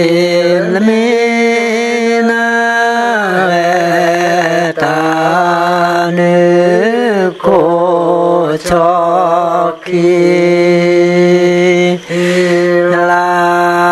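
A man chanting a Karen hta poem: long held notes stepping between a few pitches, broken by a few short pauses for breath.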